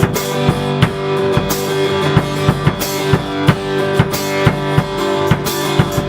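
Live rock band playing an instrumental passage between vocal lines: sustained guitar chords over a drum kit keeping a steady beat.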